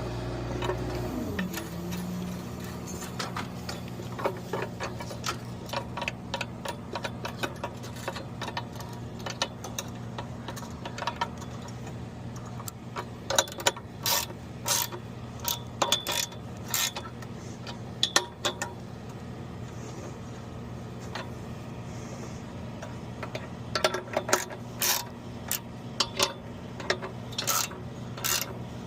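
Boom lift engine dropping back to idle about a second in, then idling steadily. Over it, irregular sharp clicks and knocks come in clusters, thickest in the middle and near the end.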